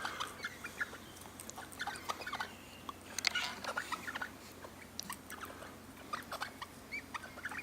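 Birds chattering softly to each other: scattered short chirps and clicks throughout.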